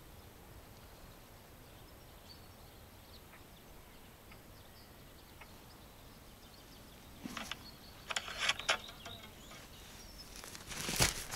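Quiet outdoor ambience with a steady low hiss, then brief rustling and handling noises of an angler's rod and clothing from about seven seconds in, growing louder near the end as the rod is lifted.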